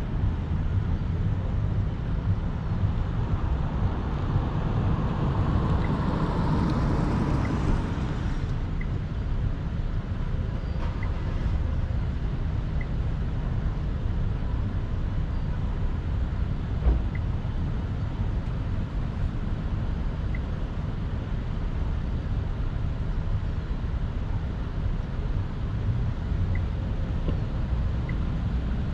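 A car driving slowly, its engine and tyre rumble heard from inside the cabin. A louder rushing swell builds a few seconds in and cuts off at about eight seconds, and a single thump comes about halfway through.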